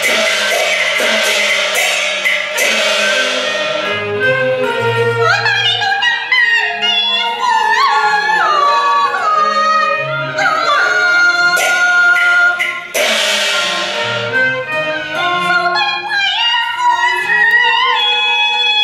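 Cantonese opera singing with its instrumental ensemble: a singer's line that slides and bends in pitch over the accompaniment. A loud crash opens the passage and another comes about thirteen seconds in.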